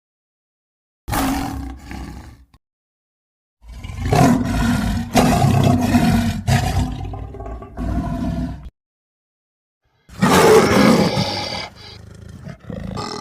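A man's voice roaring and growling into an empty tin-foil cardboard tube, imitating a bear. There is a short roar about a second in, a long roar in several pushes from about 3.5 to 9 seconds, and another loud roar at about 10 seconds that trails off into quieter growling.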